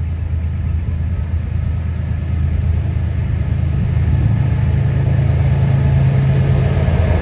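Diesel locomotive engine running with a steady low rumble, growing gradually louder as the train approaches.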